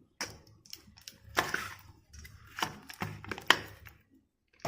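Kitchen utensil knocking and clicking against a bowl while mashing steamed ripe plantain (nendran banana): irregular knocks about every half second, stopping shortly before the end.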